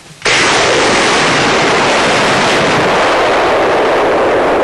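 Truck-mounted multiple launcher firing a salvo of rocket-boosted 250 kg aerial bombs: a sudden blast about a quarter second in, then a continuous loud rush of rocket motors.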